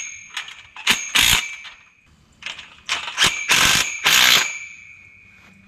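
Cordless driver tightening carriage bolts on the steel tube clamps of a chain-link kennel frame in short bursts, with a longer burst about three seconds in. Each burst leaves the steel tubing ringing.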